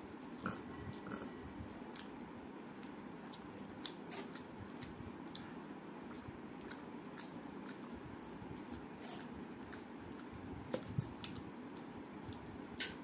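A person eating rice with her hand: chewing and wet mouth sounds, with scattered short sharp clicks, a few louder ones near the end.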